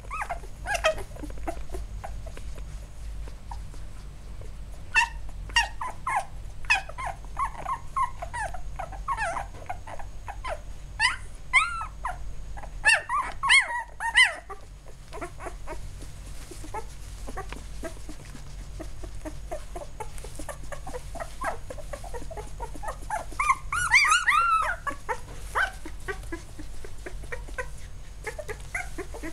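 Eight-day-old Labrador retriever puppies whimpering and squeaking: short, high-pitched cries that come in several bunches, with quieter stretches between.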